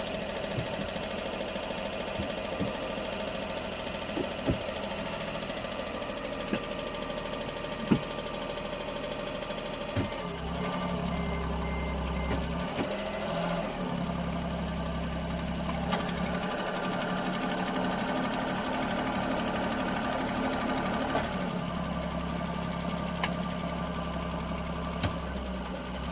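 Daihatsu EF-VE three-cylinder kei engine idling just after a cold start, with irregular sharp popping ticks over the steady hum. About ten seconds in, the engine note deepens. The owner suspects a cracked exhaust manifold that seals up once it warms and expands.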